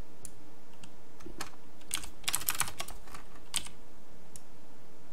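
Computer keyboard and mouse clicking: scattered single clicks, with a quick run of several keystrokes about two seconds in.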